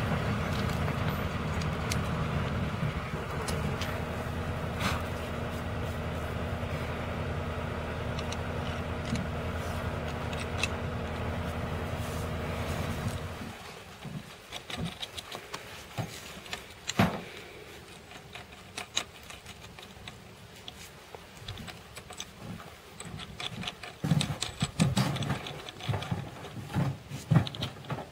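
A steady low machine hum that cuts off suddenly about halfway through. After it come scattered light clicks and knocks of small metal fixings and a transducer module being handled and fitted against a steel rail.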